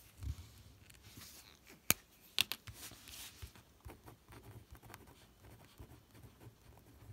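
A 0.5 mm gel pen being handled, with two sharp plastic clicks about two seconds in, then its tip scratching faintly across a paper card as it writes.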